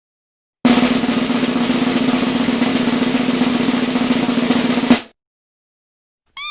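Snare drum roll lasting about four seconds, ending with a final hit. Near the end a short, high two-note tone begins.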